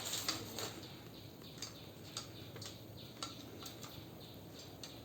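Faint, irregular clicks and taps of a ring light's tripod stand being handled and unfolded, about ten in five seconds.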